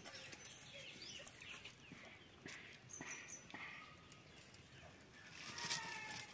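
Domestic rooster clucking and squawking as it is caught by hand, the calls loudest near the end.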